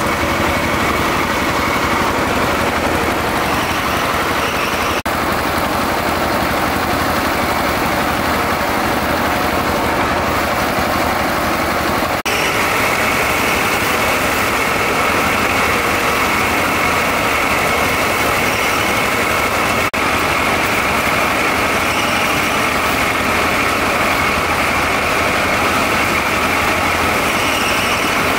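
Engine-powered rice thresher running steadily, a constant engine hum with a droning whine. It breaks off for an instant three times.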